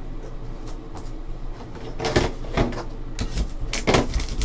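Cardboard trading-card boxes being handled and set down on a tabletop: a few sudden knocks and sliding scrapes, the loudest about two seconds in and again near the end.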